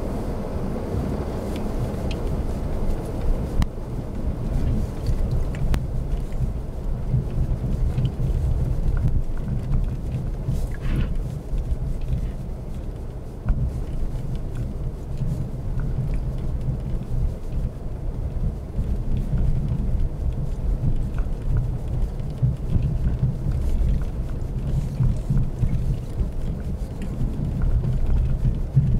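Low, steady rumble of a car crawling slowly over rutted, packed snow, heard from inside the cabin, with faint scattered ticks and creaks.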